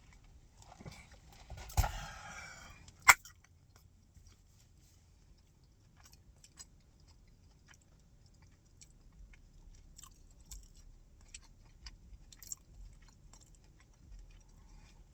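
A person eating a chicken sandwich close to the microphone: chewing and crunching, with a rustle about two seconds in and a single sharp click about three seconds in, then faint, scattered small chewing clicks.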